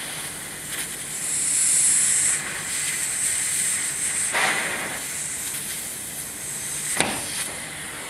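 Compressed control air hissing steadily from the open supply line of a pneumatic thermostat as plastic tubing is wiggled onto its fitting. The hiss grows louder about a second in for a second or so, and a sharp click sounds near the end.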